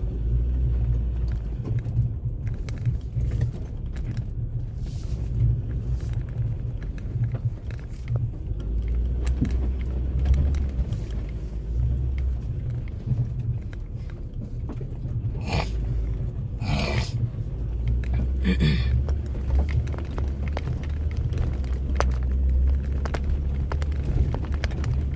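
Off-road vehicle driving over rough sandy ground: a continuous low rumble of engine and body, with a few brief scrapes or rattles about two-thirds of the way through.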